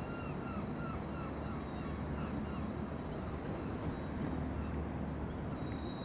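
A large cruise ship passing close by, its low steady rumble filling the river air. Over it a bird gives a quick run of short chirping calls, about three a second, which fade out about two and a half seconds in.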